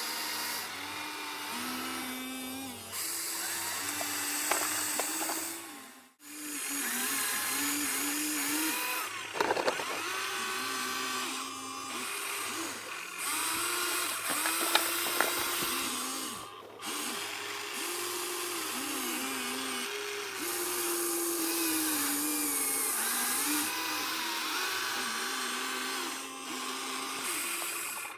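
Small electric motors of radio-controlled model excavators and trucks whining, the pitch stepping up and down every second or so as the controls are worked. A few sharp clanks come about a third of the way in and again about halfway.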